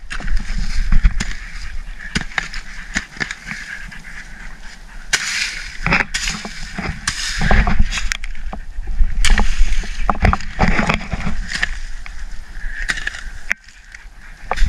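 A hoe chopping and scraping into loose soil and dead leaves, with repeated sharp strikes and rustling as dirt is pulled aside and dug through by hand.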